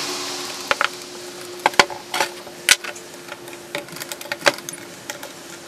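Sharp, irregular metal clicks and taps as screws are set and turned in with a hand driver on the aluminium cover of a Tecumseh Peerless transaxle case, over a steady faint hum.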